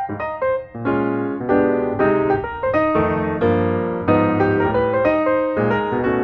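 Background piano music, a steady run of notes over chords.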